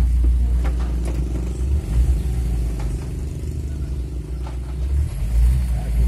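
Motor vehicle driving, heard from inside the cab: a steady low engine rumble.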